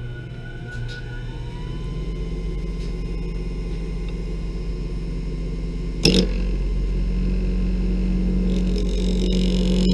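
WEN 3421 mini wood lathe running, its motor whine rising in pitch and level over the first couple of seconds and then holding steady. A single sharp knock comes about six seconds in, after which the running sound is a little louder.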